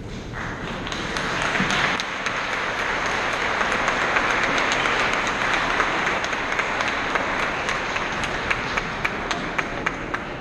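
A crowd applauding. The clapping builds over the first second or two and thins to separate, scattered claps near the end.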